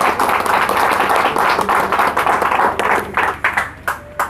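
Audience applauding: dense clapping that thins out after about three seconds into a few scattered claps and then stops.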